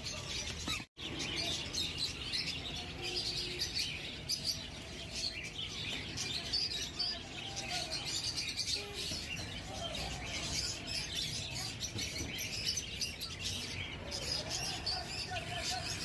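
A group of Alexandrine parakeet chicks chirping and calling continuously in many short, high notes, with a brief cut to silence about a second in.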